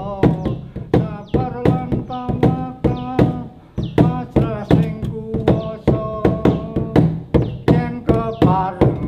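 Instrumental music: a quick, steady drum beat under a held, pitched melody line.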